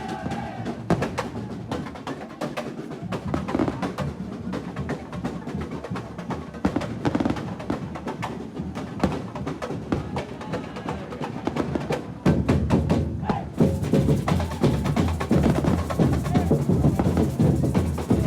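Percussion-driven music: drums and sharp wood-block-like hits, getting louder and fuller about twelve seconds in.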